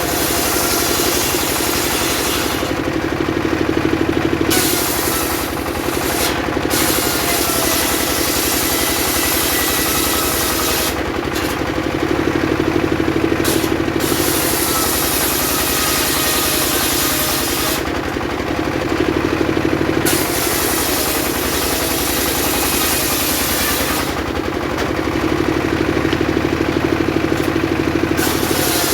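Engine-driven circular saw cutting sengon (albizia) wood: the engine runs steadily while the hiss of the blade in the wood comes and goes, with several short breaks between cuts.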